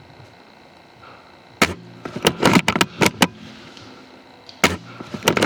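Maruzen Type 96 spring-powered airsoft bolt-action sniper rifle fired twice, about three seconds apart, each sharp shot followed by a quick run of metallic clicks and clacks as the bolt is worked to re-cock it.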